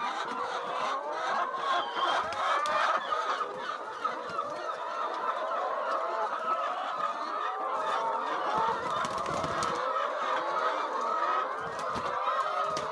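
A large flock of chickens in a poultry house clucking and calling all at once, a steady dense chatter of many overlapping birds.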